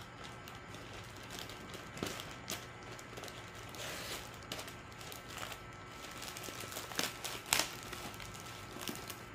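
Scissors snipping through a plastic courier mailer bag, with the plastic crinkling as it is handled and pulled open. Two sharper snaps come about seven seconds in.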